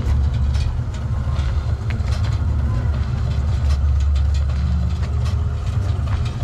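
Low, steady car-engine rumble played as a sound effect at a flying-car display.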